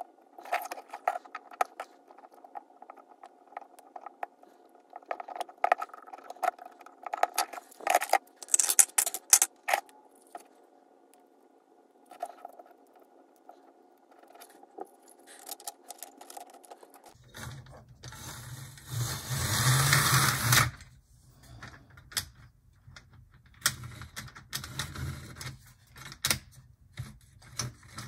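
Faint steady hum of a small mechanism with many irregular clicks and ticks, from an HO-scale model steam locomotive's motor and gearing being run in after a repair. About seventeen seconds in, the sound changes to a low hum with a loud rushing noise lasting about three seconds, then more scattered clicks.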